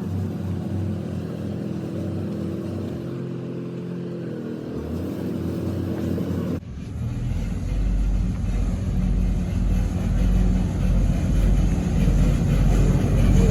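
Engine running with a steady hum. About halfway through the sound cuts abruptly to a deeper, louder engine rumble that builds toward the end.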